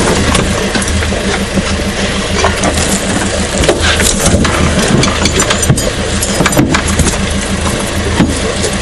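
Fishing boat's engine idling with a steady low hum, with a few sharp knocks on deck partway through.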